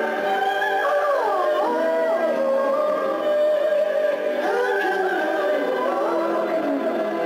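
A man singing, holding long notes that slide up and down in pitch.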